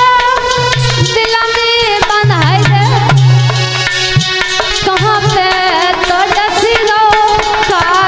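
Music: a woman singing a mournful devotional folk song, her voice wavering and bending in pitch, over steady held instrumental notes and hand-drum beats.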